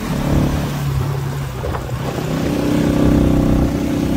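Motorcycle engine running under way: its pitch drops at the very start, holds lower, then rises again about two seconds in as the throttle is opened.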